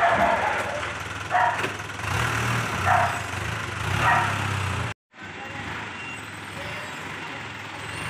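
A roll-on/roll-off hook-lift lorry's engine running steadily, with four short calls over it in the first five seconds. The sound cuts out abruptly for a moment about five seconds in, then the engine noise carries on.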